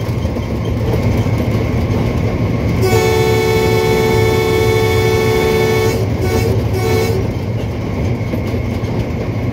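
Train's locomotive horn sounding over the steady rumble of the moving train. About three seconds in it gives a long two-tone blast, then a few short toots.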